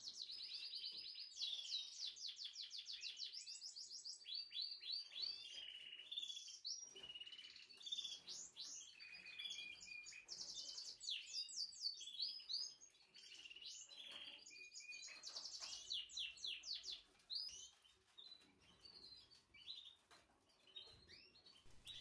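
Caged canaries singing, with rapid trills of repeated high notes and chirps that grow sparser with short gaps in the second half.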